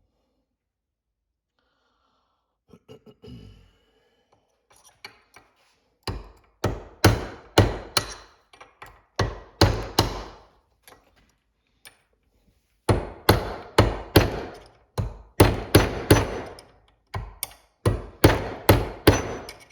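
Hammer striking a steel punch or chisel to drive out a worn automatic-transmission bushing. After a few quiet seconds with light handling, two runs of sharp metal-on-metal blows come about two a second, each ringing briefly.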